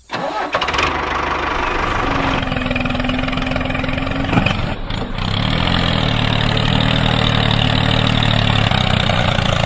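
Tractor engine running steadily with a low drone. A thin steady tone sits over it for a couple of seconds, and the low hum grows stronger and more pitched about halfway through.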